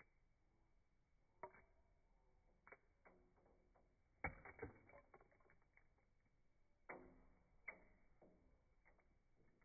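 Faint, scattered clicks and taps of a male common blackbird pecking and rummaging through seed mix on a wooden bird-feeder tray, with a quick run of louder taps about four seconds in.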